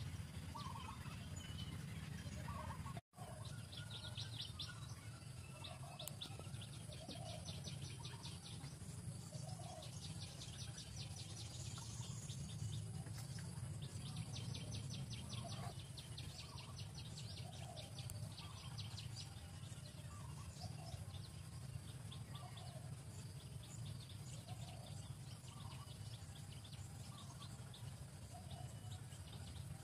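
Outdoor ambience of birds calling: repeated rapid high trills a second or two long, and short lower chirps every second or two, over a steady low hum. The sound cuts out for an instant about three seconds in.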